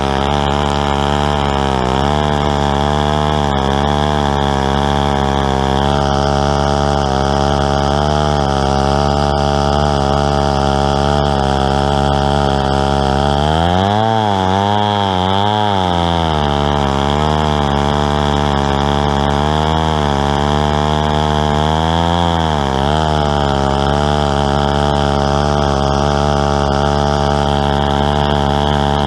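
Stihl 090 two-stroke chainsaw running at full throttle on a chainsaw mill, ripping lengthwise through a tulip poplar log. The engine note holds steady but wavers down and back up twice, once in the middle and once later on, as the saw bogs under load in the cut and recovers.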